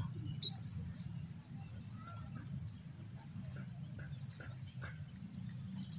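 Faint outdoor ambience: a low steady rumble, a thin high steady whine, and a few faint short chirps about two seconds in.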